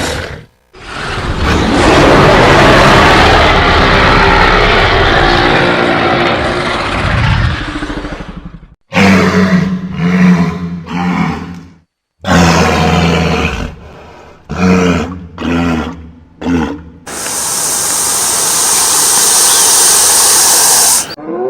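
Designed creature vocalizations: one long, rough roar lasting about eight seconds, then a run of shorter pitched grunting calls with short pauses between them, ending in a hiss lasting about four seconds.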